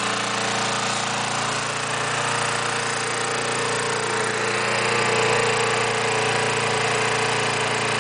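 Lawn mower engine running steadily on wood gas from a homemade gasifier.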